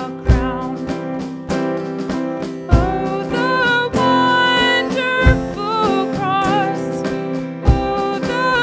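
A woman singing a solo melody into a handheld microphone over instrumental accompaniment, with a low beat about every two and a half seconds.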